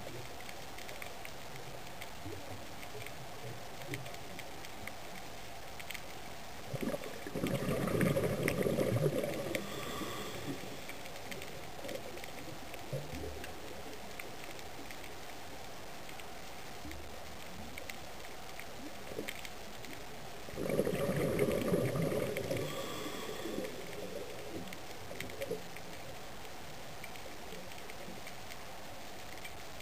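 Underwater camera audio: a steady hiss with faint clicks, broken twice by a few seconds of gurgling bubble noise, about seven seconds in and again about twenty-one seconds in, from the filming swimmer's exhaled breath.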